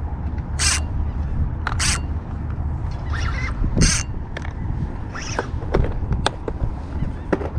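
Fishing reel's drag letting out line in short zipping bursts as a hooked fish runs, over a steady low rumble of wind on the microphone.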